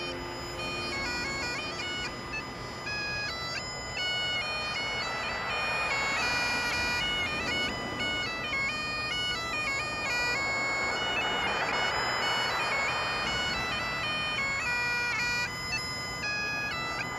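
Bagpipes being played: a melody stepping quickly from note to note over the steady hum of the pipes' drones.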